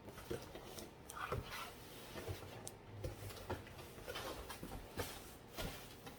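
Packaged drinks being taken out of a shipping package and handled: irregular knocks and clicks with some rustling.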